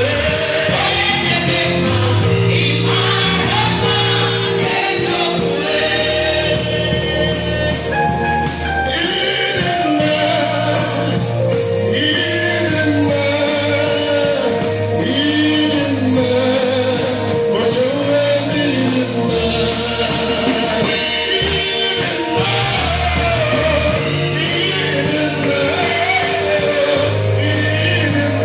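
Live gospel choir singing with a lead voice over a band with bass and drums, loud and steady.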